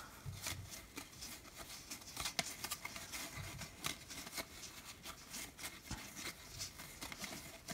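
A deck of playing cards handled and sorted through by hand: faint, irregular clicks and slides of card edges against each other.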